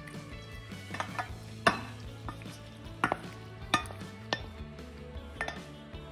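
Cooked elbow macaroni being scraped out of a metal pot into a glass bowl with a metal spoon. There is a series of sharp clinks of metal on metal and glass, the loudest about a second and a half in. Soft background music runs underneath.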